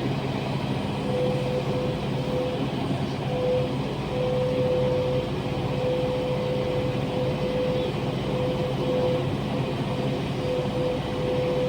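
Heavy diesel engine of an excavator running steadily at work, with a humming tone that keeps cutting in and out.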